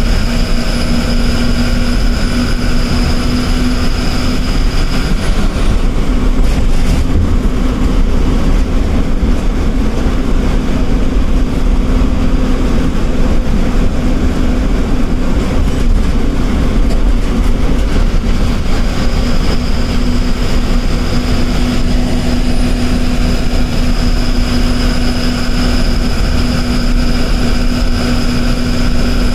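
Inside the cabin of a KSRTC ordinary bus driving at speed: steady engine drone and road noise. A high whine fades out about five seconds in and comes back around twenty seconds in.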